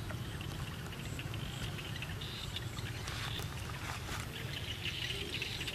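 Water splashing and sloshing as a monkey wades through a muddy pond, over a steady low rumble.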